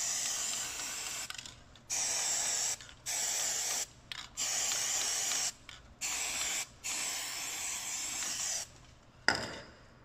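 Aerosol can of gasket remover spraying in repeated hissing bursts of about a second each with short gaps between them, six in all. A single sharp knock comes near the end.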